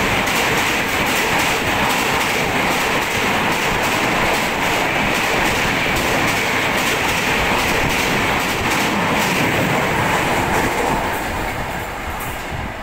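An express passenger train's coaches rushing past at speed, a steady loud rush with the regular clatter of wheels over rail joints. It fades near the end as the last coach goes by.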